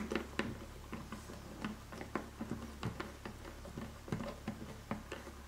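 A 1/4 inch hand driver tightening a small threaded pillar into a metal bottom plate by hand: a series of small, irregular clicks and ticks, about two or three a second.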